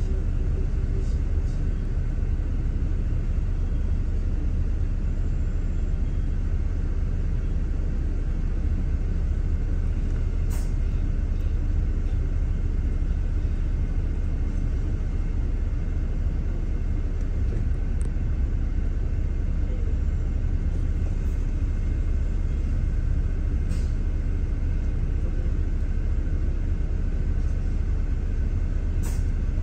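Steady low rumble of a double-decker bus's engine and road noise, heard from inside on the upper deck, with a few faint ticks.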